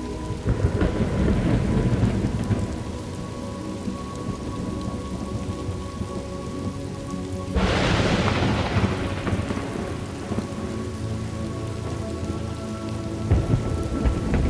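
Steady rain with thunder: a rolling rumble about a second in, a sharp thunderclap about halfway through that fades away over a couple of seconds, and more rumbling near the end.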